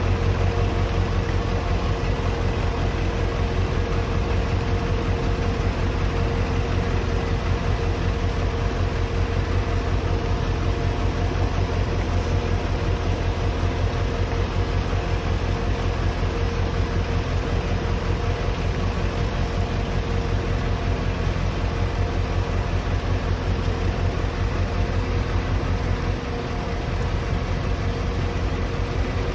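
Heavy diesel engine running steadily as a John Deere crawler dozer tows a stuck pickup through mud, with a deep continuous rumble and a steady mid-pitched whine; it drops back briefly near the end.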